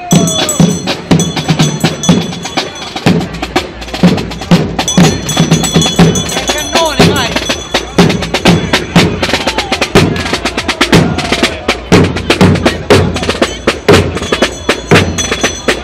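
A marching drum corps playing field drums (side drums) in a rapid, steady rhythm, loud and close.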